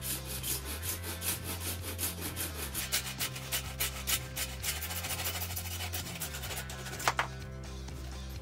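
A hand tool scraping and filing the cut end of a grey PVC drain pipe in quick repeated strokes, deburring it before gluing. The strokes come faster in the middle, stop about seven seconds in, and two sharp clicks follow.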